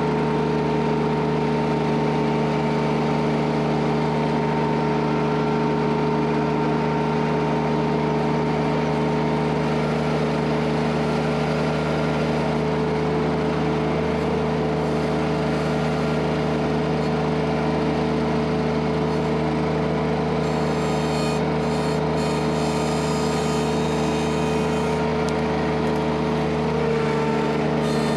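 An engine running steadily at a constant high speed, with no change in pitch or loudness; a thin high whine joins it about two-thirds of the way through.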